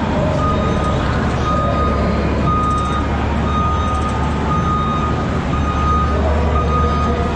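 Pulling tractor's engine idling with a steady low drone, while a backup-alarm beep repeats about once a second.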